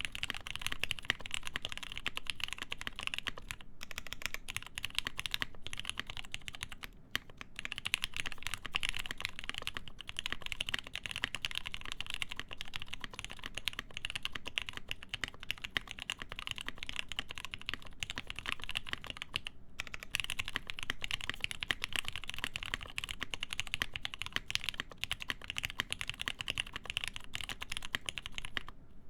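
Continuous fast typing on a mechanical keyboard with lubed Gateron Ink linear switches, a full POM plate and GMK keycaps: a dense stream of keystrokes, with brief pauses about 3.5, 7 and 19.5 seconds in.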